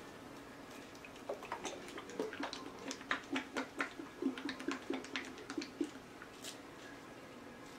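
A run of small, irregular clicks and taps, several a second, starting about a second in and stopping near the six-second mark, from handling paint cups and tools.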